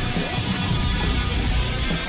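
Background rock music with strummed electric guitar and heavy bass.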